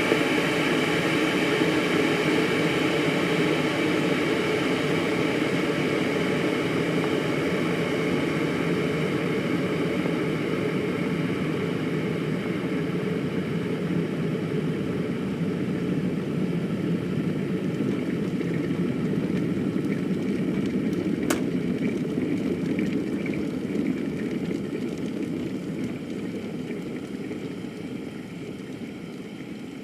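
Electric kettle boiling water, a steady bubbling hiss. A single sharp click comes about two-thirds of the way through, after which the boiling slowly fades.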